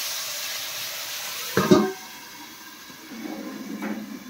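Water poured into a hot kadai of frying spiced taro pieces, hissing and sizzling as the curry is set to braise, the hiss dying down over about two seconds. A brief loud knock about a second and a half in, then a quieter sizzle as the pan is stirred with a metal spatula.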